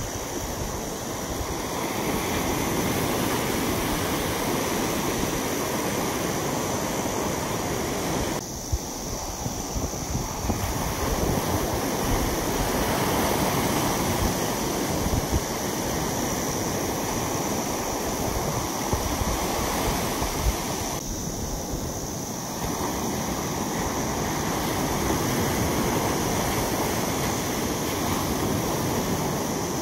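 Ocean surf breaking and washing up a sandy beach: a continuous rush of waves that eases briefly twice.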